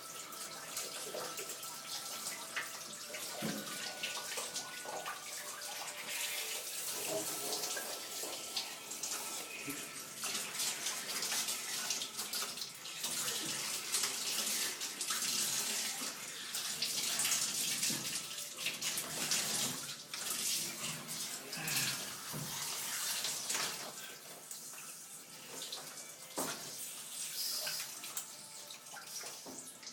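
Water trickling and dripping steadily out of a cut water pipe as the line drains down.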